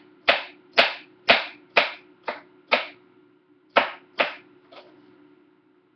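Kitchen knife chopping a red onion on a cutting board: sharp knocks about two a second, six in a row, a short pause, then three more before it stops.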